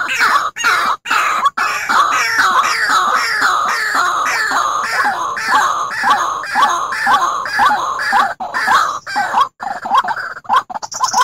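White-breasted waterhen calling: a fast, unbroken series of loud notes, each falling in pitch, about three a second, with a higher-pitched note near the end.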